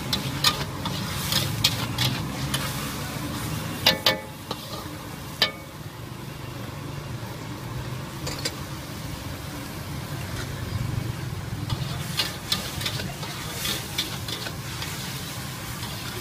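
Noodles and vegetables being stir-fried in a steel wok: a metal spatula scrapes and clanks against the pan while the food sizzles, over a steady low rumble. The clanks come irregularly, loudest about four and five seconds in, with a busier run of them near the end.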